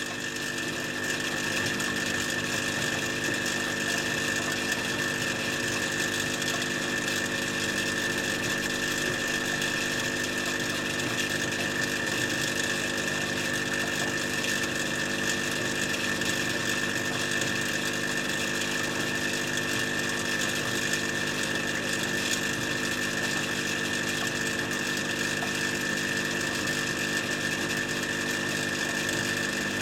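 Steady machine hum with a high whine, unchanging throughout.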